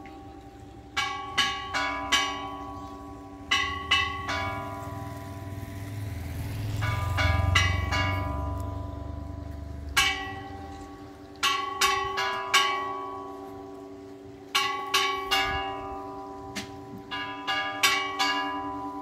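Church bells pealing: several bells of different pitches struck in quick clusters of three to five strokes about half a second apart, with pauses of one to two seconds between clusters, their tones ringing on. A low rumble swells and fades about halfway through.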